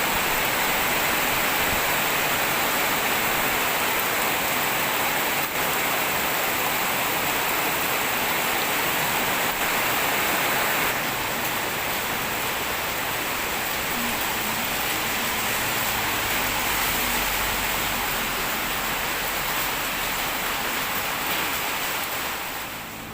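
Heavy rain pouring down steadily, a dense even hiss that eases slightly about halfway through.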